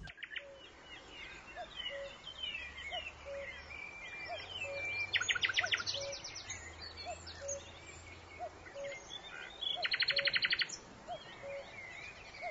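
Birds chirping and calling, with two fast rattling trills, one about five seconds in and one about ten seconds in. A faint regular peep repeats under it, roughly one and a half times a second.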